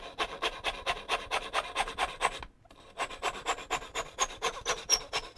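Back saw cutting through a wooden blank by hand: quick, even rasping strokes of the teeth, about five a second, with a brief pause a little past halfway before the sawing resumes.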